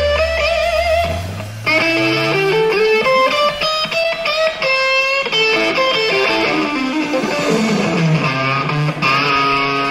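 Background music: an electric guitar playing a melodic lead with bent, wavering notes over a bass line.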